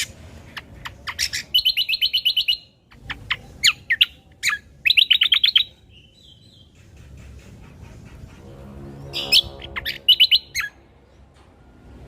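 Cucak kombo songbird singing: sharp single chirps and quick high trilled phrases in three bursts, with short pauses between.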